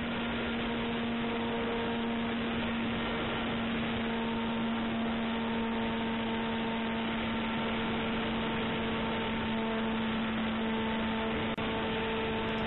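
Radio-controlled Caudron C600 model plane in flight, heard through its onboard camera: a dense rush of air and propeller noise with a steady hum under it. It sounds thin and muffled, with a brief dropout near the end.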